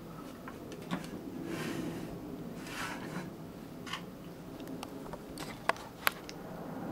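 Faint handling noise: soft scrapes and a few light clicks, the sharpest two near the end.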